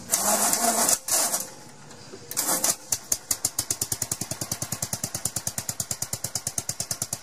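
1945 Gravely Model L walk-behind tractor's single-cylinder engine being cranked in three short bursts, then catching about three seconds in and running with an even beat of about eight firing pulses a second.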